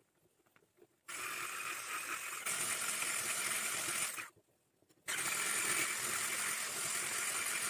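Electric hand blender with a whisk attachment beating flour into thin pancake batter in a bowl. It starts about a second in, gets louder a little later, stops for under a second around four seconds in, then runs steadily again.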